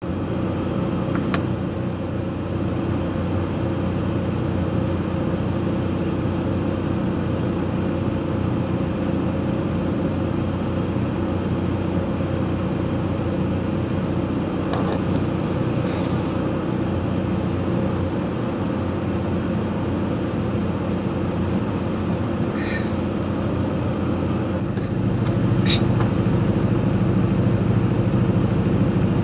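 Mobile crane's diesel engine running steadily, heard from inside the operator's cab; it grows louder and deeper about 25 seconds in. A few short high clicks come through on top.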